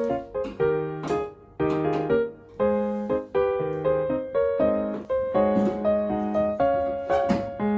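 Solo piano music: a flowing run of chords and melody, each note struck and then dying away.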